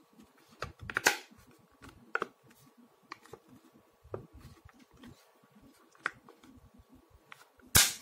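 Plastic clicks and handling noises as the cover of a Seagate portable hard-drive enclosure is pressed and snapped shut around its edges, with a sharp click about a second in and a louder one near the end.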